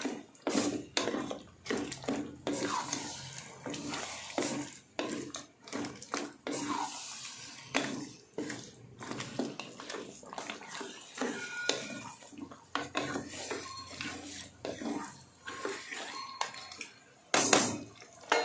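A wooden spatula stirs chicken pieces through thick gravy in a stainless steel pot. It scrapes and knocks against the pot many times in quick, uneven succession, with the loudest stroke near the end.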